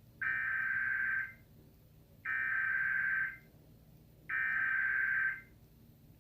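Emergency Alert System header tones: three bursts of digital data tones, each about a second long and about a second apart.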